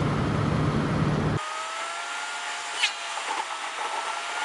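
Car driving on a country road: loud wind and road noise at first. About a second and a half in, a cut brings a quieter cabin sound with a steady whine that slowly rises in pitch, and a brief sharp squeak partway through.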